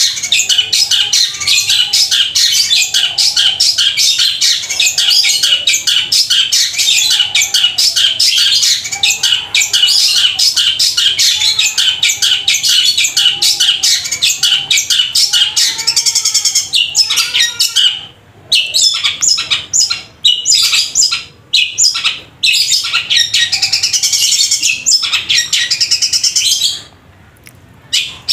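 Long-tailed shrike (cendet) in a cage singing a loud, long, rapid chattering song that mimics the squabbling calls of fighting sparrows. It runs almost without a break for about seventeen seconds, then goes on in shorter phrases with brief pauses.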